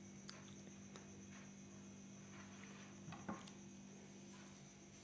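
Near silence: a faint steady electrical hum with a few faint clicks.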